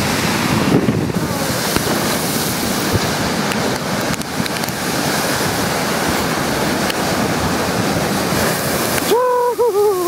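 Storm waves from the lake crashing against a concrete seawall, with spray and wind buffeting the microphone in a loud, continuous rush. Near the end the rush drops away and a child's high, wavering calls take over.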